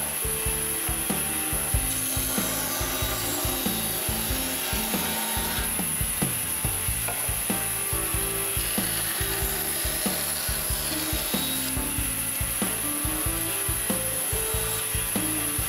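Band saw running and cutting small wooden blocks, with frequent short clicks and knocks as the pieces are fed against the blade.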